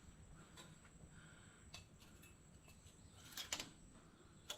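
Near silence broken by a few faint clicks and knocks from handling something; the loudest is a quick cluster about three and a half seconds in, with one more near the end.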